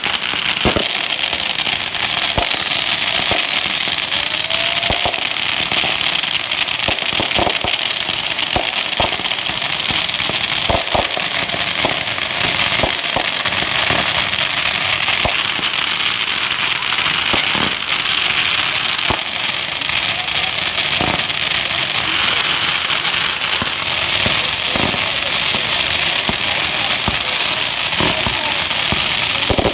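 Fireworks going off: a continuous dense crackling, with sharper pops and bangs scattered irregularly throughout.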